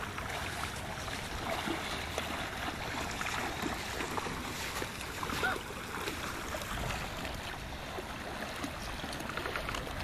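Shallow beach water lapping and washing steadily.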